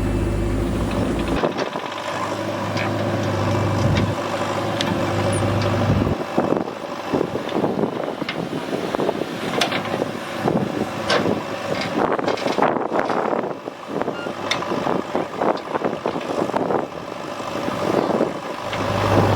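JCB 4DX backhoe loader's diesel engine working, with a steady low hum that drops away in the middle while many sharp clanks and knocks of the bucket and soil come through. The low hum returns near the end.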